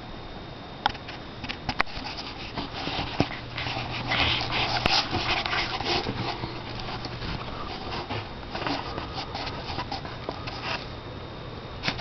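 Rustling and scratching handling noise from the camera being moved and covered, with scattered sharp clicks and taps. It is densest in the middle.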